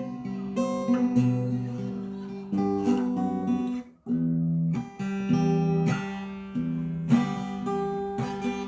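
Acoustic guitar played fingerstyle in a percussive style, plucked notes and chords ringing over a low bass line. The playing cuts off abruptly about halfway, then starts again.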